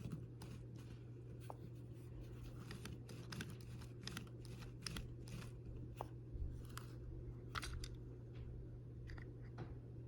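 Hands handling a seatbelt retractor and its plastic parts: irregular small clicks and brief scraping rustles, over a steady low hum.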